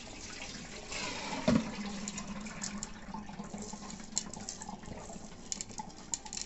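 Soaking water poured from soaked sorghum into a perforated metal strainer, splashing and draining through the holes. There is a single knock about a second and a half in, and scattered light clicks near the end as the wet grains settle.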